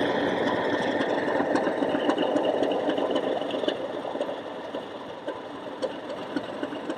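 A model Class 37 diesel locomotive running along the track, its factory-fitted DCC sound decoder playing the English Electric diesel engine sound through the onboard speaker, mixed with the model's own running noise. The sound grows quieter over the second half.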